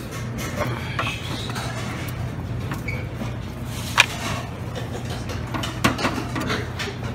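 Metal serving tongs clacking against stainless steam-table pans over the steady low hum of a buffet room, with one sharp clack about four seconds in and a few softer knocks near six seconds.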